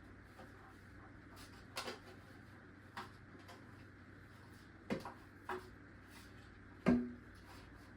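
Light, scattered knocks and clunks of objects being handled and set down, about five over several seconds. The loudest comes near the end, with a brief low ring, over a faint steady hum.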